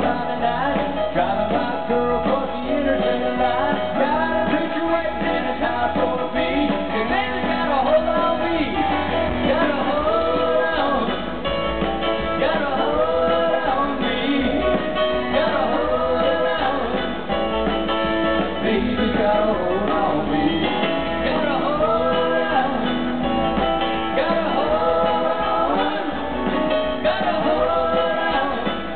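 Live country-rock band with a male lead singer over electric guitar, mandolin, keyboard and drums. It sounds dull, with the treble cut off.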